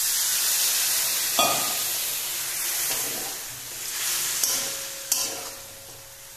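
Water added to hot oil and spice-fried potatoes and peas in a metal pot sizzles loudly, the hiss fading slowly over several seconds. A few sharp clinks of the stirring spoon against the pot come through it.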